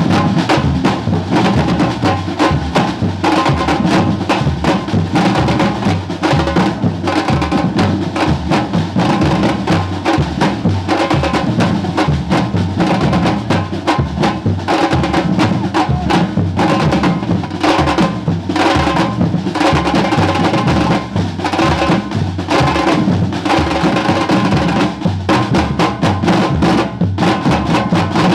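Percussion music: drums playing a dense, steady rhythm.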